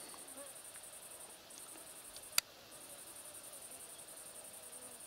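Faint, steady high-pitched chirring of insects in the grass: a fast, even trill that drops out briefly twice. A single sharp click about two and a half seconds in is the loudest sound.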